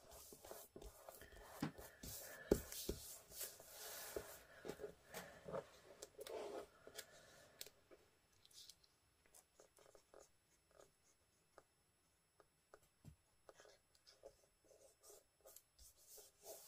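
Faint rustling and rubbing of paper being handled by hand, for the first several seconds, then only scattered small clicks and taps.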